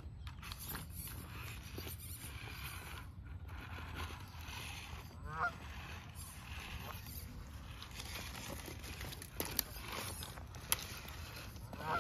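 A goose honks twice, once about five seconds in and again at the very end, over a steady low rumble. A few sharp clicks or knocks come in between.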